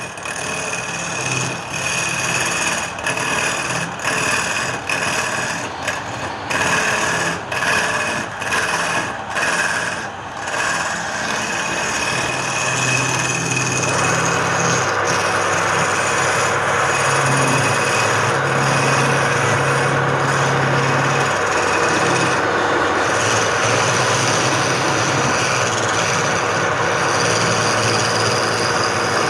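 Wood lathe running with a tool working the spinning wood: a rasping, scraping noise over a faint steady motor whine. The noise breaks off briefly many times in the first ten seconds or so, then runs on steadily from about halfway through.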